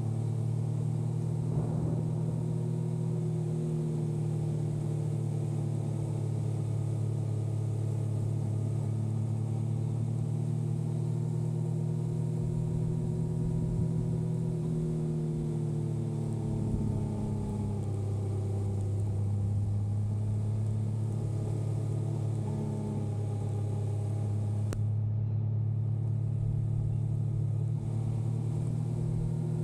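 Yamaha motorcycle engine running steadily under way, its pitch easing down a little past the middle and rising again later.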